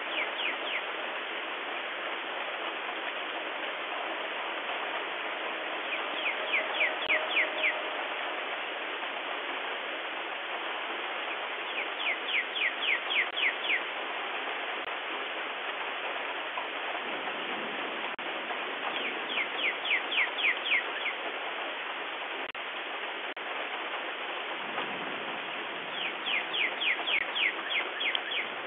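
Steady rain falling, heard through a doorbell camera's microphone. Over it a songbird sings a phrase of six to eight quick, downward-slurred whistled notes, repeated five times about every six or seven seconds.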